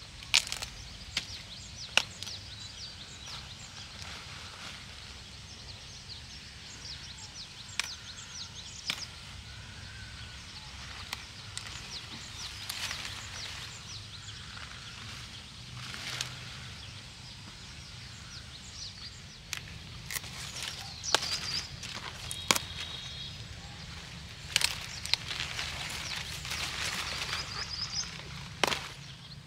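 Cauliflower plants being handled by hand: leaves rustling and stalks snapping and knocking as the leaves are broken off, in irregular sharp cracks. Birds chirp now and then.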